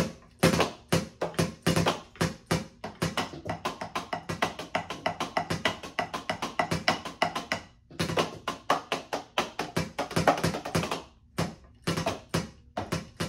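Drumsticks playing a fast beat on the pads of an Alesis Nitro electronic drum kit, a steady stream of dry taps and thuds several a second. The playing breaks off briefly about eight seconds in, and the hits grow sparser near the end.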